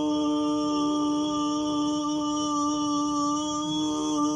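A person's singing voice holding one long, steady note, the drawn-out word of a sung jingle.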